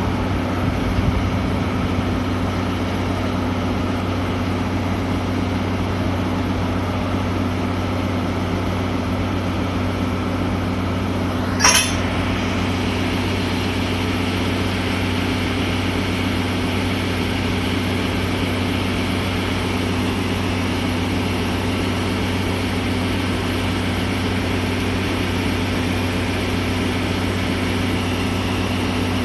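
DE10 diesel locomotive's V12 diesel engine idling steadily with a low, even drone. A single brief sharp noise cuts in about twelve seconds in.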